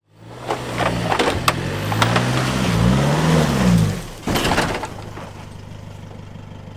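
Four-wheel-drive engine revving, its pitch rising and falling, with knocks and clatter over rough ground. About four seconds in, the revving stops, there is a brief loud crunch, and the engine then idles steadily.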